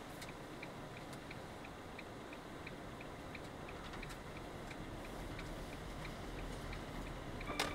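Car turn-signal indicator ticking at an even pace, about two to three clicks a second, over the low hum of the engine and road heard inside the cabin. A single sharp knock near the end.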